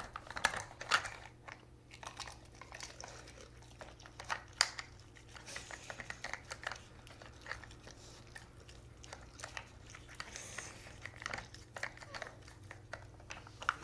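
A dog nosing and pushing the plastic sliding blocks and bone-shaped lids of a treat puzzle toy: irregular light plastic clicks and knocks, one louder about four and a half seconds in, mixed with the dog chewing and crunching the treats it uncovers.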